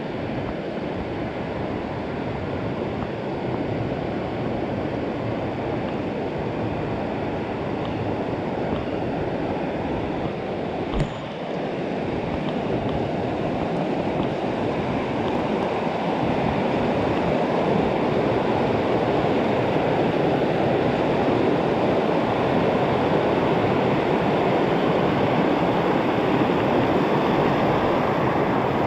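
Mountain creek running high, a steady loud rush of water that grows a little louder partway through. A single sharp knock about a third of the way in.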